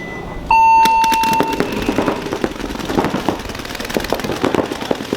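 An electronic game buzzer sounds one long beep about half a second in. Then paintball markers open fire in rapid, irregular popping shots that keep on.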